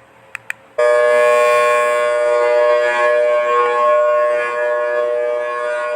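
Thunderbolt civil defense siren sound effect: two short clicks, then under a second in the siren starts abruptly at full loudness. It holds a steady chord of several tones without rising or falling in pitch.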